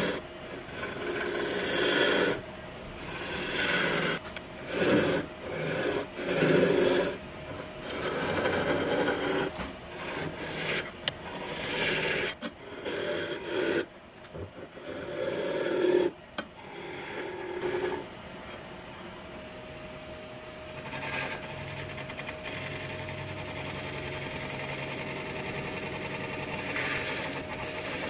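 Wood lathe turning a hollow vase form while a gouge cuts the spinning wood: a series of rasping cuts, each a second or so long, with short gaps between. After about 18 seconds the cuts stop and the lathe runs on with a steady tone and only light, even cutting.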